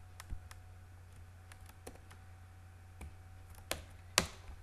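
Computer keyboard keystrokes, slow and irregular, about ten scattered clicks with pauses between them, the sharpest one a little after four seconds in. A steady low hum runs underneath.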